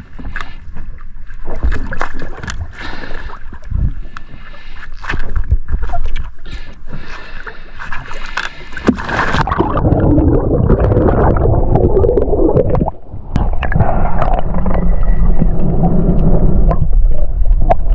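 Water splashing and slapping around a spearfisher floating at the surface, then, about nine seconds in, the sound turns muffled as the camera goes under on the dive: a loud low underwater rush with bubbling.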